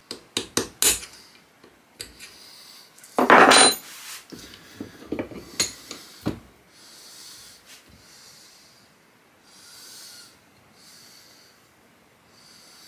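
Hammer tapping a punch against a Carcano rifle bolt clamped in a bench vise, trying to drive out the stuck extractor: four quick metallic taps in the first second, a louder half-second rasping scrape about three seconds in, then a few more taps. The extractor is peened in and does not shift.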